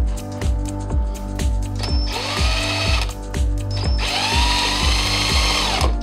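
Cordless drill boring holes into a 3D-printed plastic fan bracket. It makes two runs, a short one about two seconds in and a longer one from about four seconds in, each spinning up in pitch and winding down as it stops. Background music with a steady beat plays throughout.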